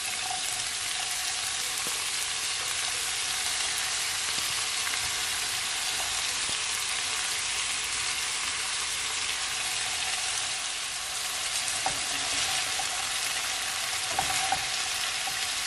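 Strips of bell pepper, carrot and onion sizzling steadily in hot oil in a nonstick frying pan as shredded cabbage is added on top. There are a few light knocks near the end.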